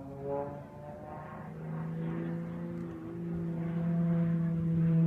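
Airplane flying overhead, its engine a steady, pitched drone that grows louder in the second half.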